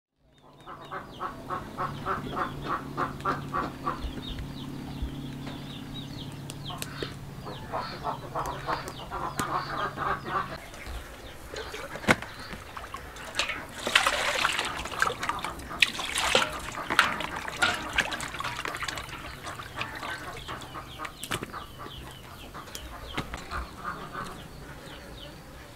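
Farm poultry calling in quick runs of short calls, with a low steady hum under the first half. In the middle, a stretch of water splashing as hands work in a plastic basin.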